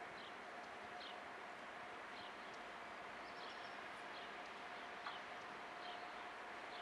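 Short, falling bird chirps about once a second over a faint steady hiss with a thin constant tone from a distant approaching freight train.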